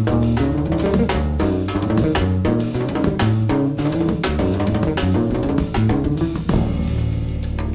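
Band music: a drum kit plays busily with snare and bass drum over moving bass and guitar parts. About six and a half seconds in, the drums stop and a held low chord rings on.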